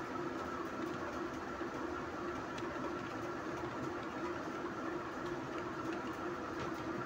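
A steady machine hum carrying a low tone and a higher one, with faint, scattered computer keyboard clicks as text is typed.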